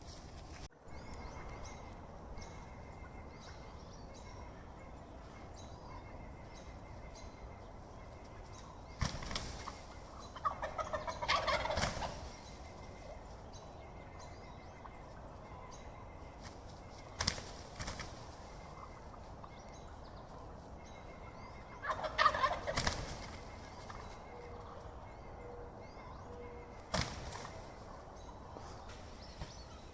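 Turkey gobbling twice, each a rapid rattling call of a second or so, about ten seconds apart. A few sharp knocks fall in between.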